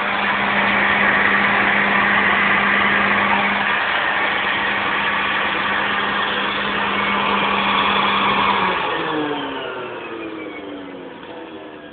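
A 1976 Hoover Convertible upright vacuum cleaner's motor runs steadily with its suction rush. The brush roll is not turning because its drive belt is broken. About nine seconds in the motor is switched off and winds down with a falling whine.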